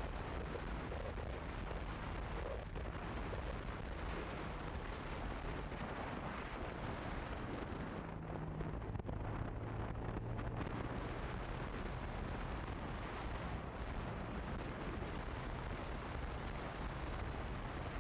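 Wind rushing and buffeting over the microphone of a motorcycle riding at steady speed, with the low running of a Honda CB150F's single-cylinder engine underneath.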